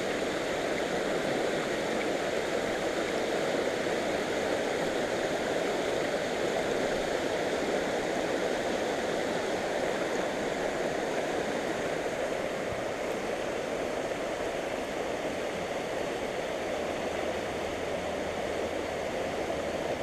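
Shallow creek water running steadily over a rocky, gravel bed: an even rushing of the current that eases slightly near the end.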